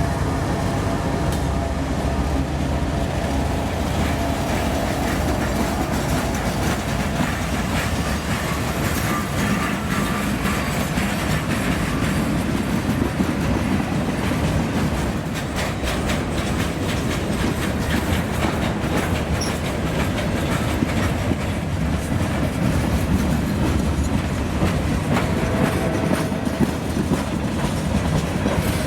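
Freight train rolling by steadily, its wheels clicking over the rail joints, the clicking thickest in the middle stretch.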